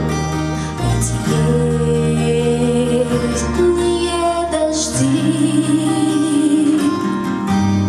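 Woman singing a slow pop song over an instrumental backing, holding long notes with vibrato.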